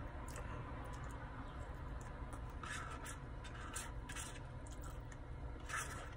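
A person eating chili cheese fries: about four short scratchy handling or chewing noises, the last and loudest near the end, over a low steady hum.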